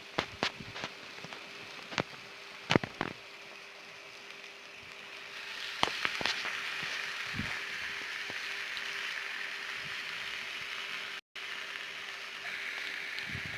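Chicken pieces sizzling in very hot oil in a grill pan, with scattered pops and crackles. The sizzle grows louder and steadier about halfway through.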